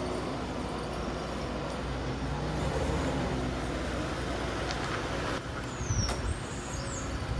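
Engine of a black first-generation Toyota RAV4 running steadily with a low rumble. A few light ticks and a short high chirp come near the end.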